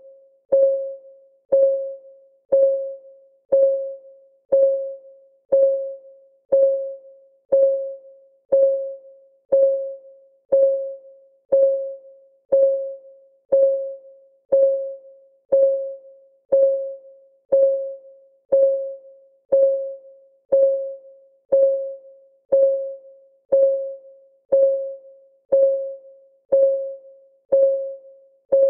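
Countdown timer's clock-ticking sound: a short, pitched tick once a second, every tick the same note and fading quickly.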